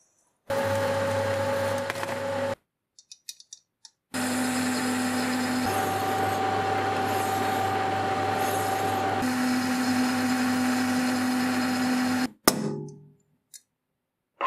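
Small metal lathe running with a steady motor hum and whine while a turned steel part spins and is finished by hand, in a short two-second run and then a longer one of about eight seconds; its pitch shifts twice. The motor cuts off suddenly near the end, followed by a sharp metallic click.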